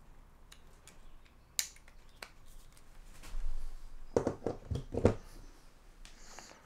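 Small clicks and knocks of plastic camera parts and cable being handled on a countertop, with a cluster of louder knocks about four to five seconds in and a brief rustle near the end.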